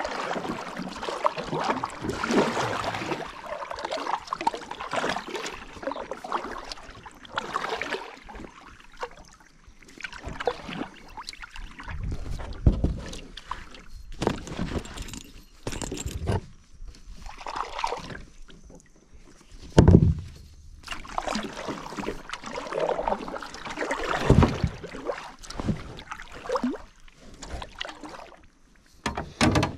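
A double-bladed kayak paddle dipping and pulling through calm water, with irregular splashes and drips at each stroke. A few dull thumps are heard through the plastic hull of the sit-on-top kayak, the loudest about two-thirds of the way in.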